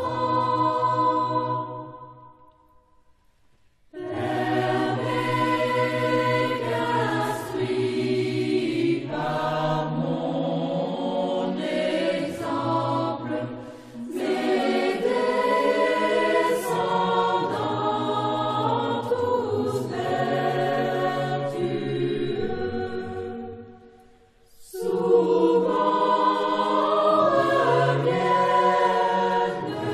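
Background choral music: a choir singing in long held phrases, with a brief pause about three seconds in and another near the end.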